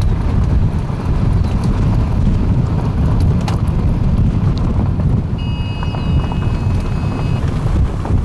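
Wind buffeting and road noise from a vehicle driving at speed: a steady low rumble with no break.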